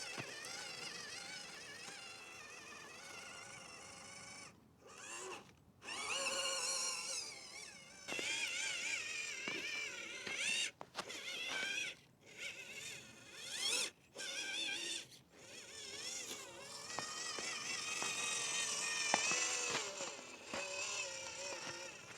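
Small electric motor and gearbox of a WPL C84 RC crawler whining as it drives, the pitch wavering with throttle and load. It cuts out briefly several times as the throttle is let off.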